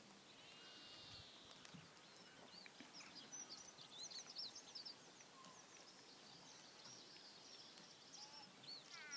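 Faint songbirds chirping: many short, high chirps and quick trills, busiest around the middle, over a light steady hiss.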